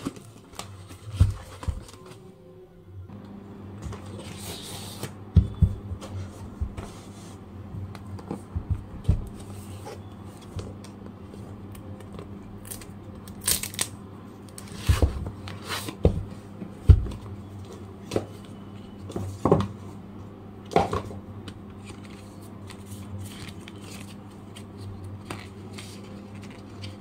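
Cardboard and paper packaging being handled and unpacked by hand: scattered rustles, scrapes, taps and a few louder knocks as a phone's retail box is taken out of its mailer and opened. A low steady hum sets in about three seconds in.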